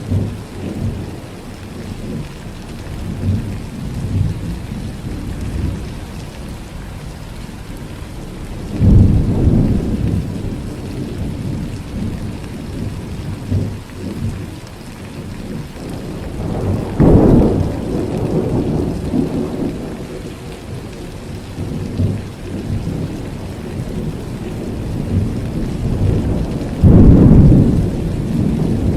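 Thunderstorm: steady rain falling, with rumbling thunder and three loud peals, about a third of the way in, just past the middle, and near the end.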